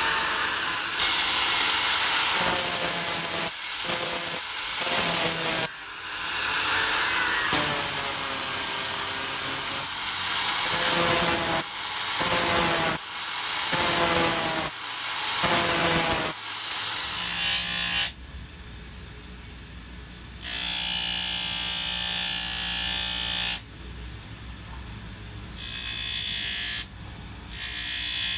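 Power grinder shaping the curved edge of a D2 steel chisel, in a series of short passes with the pitch shifting as the steel is pressed on. From about eighteen seconds in it runs quieter and more evenly, with a louder stretch a few seconds later.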